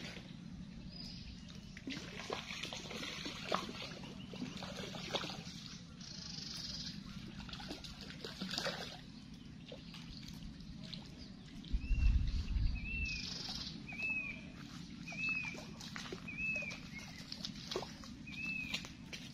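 An animal's short, arched call, repeated about once a second through the second half, over scattered clicks. A low thump near the middle is the loudest sound.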